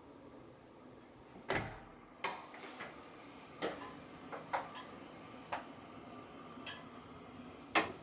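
About ten light, sharp clicks and knocks at irregular intervals, like small objects being handled or set down, over a faint steady hiss. The loudest knock comes near the end.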